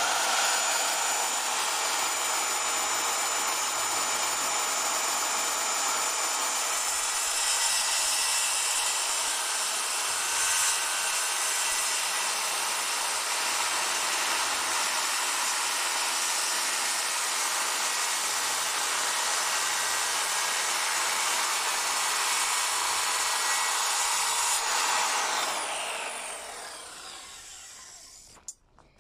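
Handheld electric circular saw cutting through a wooden board, running under steady load for about 25 seconds, then fading away as the blade spins down near the end.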